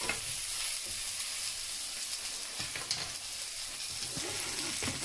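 Sliced onion and chorizo sizzling steadily as they fry in oil in a nonstick frying pan.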